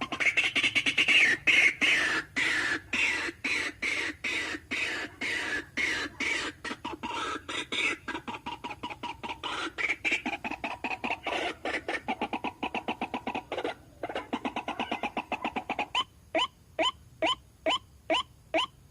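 White-breasted waterhen calling: a fast run of harsh, repeated notes, several a second. Near the end it changes to spaced, sharply falling notes, about two or three a second.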